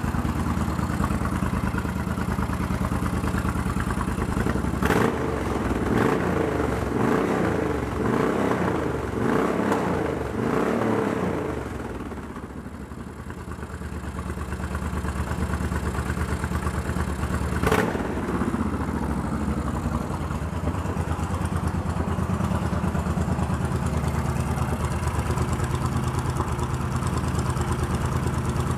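2000 Suzuki VL1500 Intruder's liquid-cooled V-twin engine idling, then revved several times from about five seconds in for some six seconds. It drops back, dips briefly, then settles into a steady idle. Two sharp clicks stand out, near the first rev and about eighteen seconds in.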